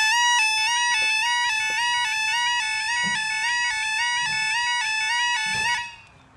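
Level crossing audible warning alarm sounding a rapid two-tone yelp, its pitch stepping evenly up and down, then cutting off suddenly near the end.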